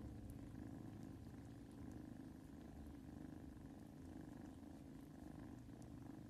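Kitten purring: a soft, steady low rumble.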